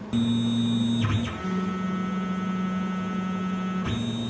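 Tormach CNC mill's Z-axis stepper motor whining steadily as it drives the tool down onto the electronic tool setter and back up in a tool-length measuring cycle. The whine drops in pitch about a second in and returns to its first pitch near the end.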